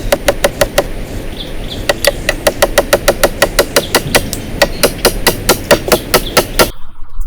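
Rapid, evenly repeated knocks of a tool striking, about four to five blows a second, over a steady noisy background; the blows and the background cut off abruptly near the end.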